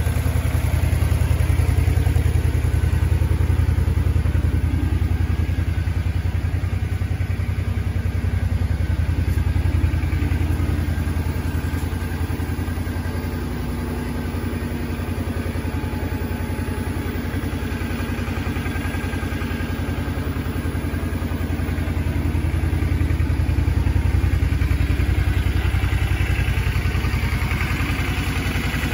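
Suzuki Boulevard 400's carbureted 399 cc liquid-cooled V-twin idling steadily, a low even rumble with a rapid, regular firing beat and no revs.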